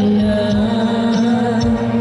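Girls singing a song into microphones over musical accompaniment, with long held notes.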